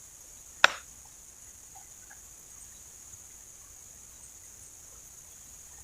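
A steady, high-pitched drone of forest insects, with one sharp knock or click about half a second in.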